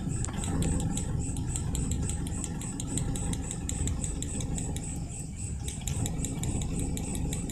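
Suzuki Carry 1.0's four-cylinder engine idling, with a fast, even ticking over the running. A spark plug lead is pulled off the distributor cap to check whether that cylinder's plug is firing.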